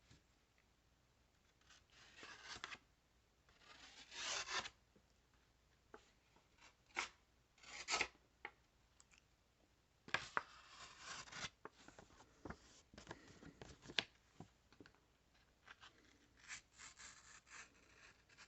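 Kershaw Launch 13 automatic knife blade cutting into a test material: faint, scattered rasping, scraping strokes with a few sharp clicks between them.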